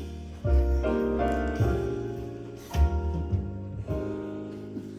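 Background music: piano with sustained chords over a bass line, chords changing about every second.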